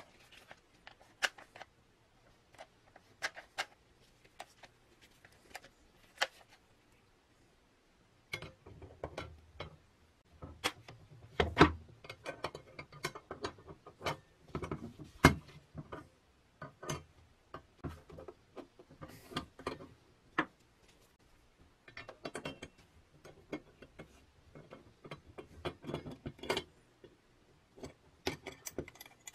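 Small metal parts of a miniature bear trap clicking and clinking as they are handled and fitted together: irregular sharp clicks, sparse at first and busier in two stretches, about a third of the way in and again near the end.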